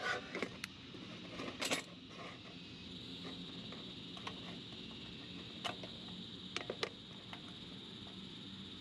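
Sharp metallic clicks and clinks from a hurricane oil lantern being handled: a quick cluster in the first two seconds, then a few single clicks later on, as the wire frame and glass globe are worked by hand.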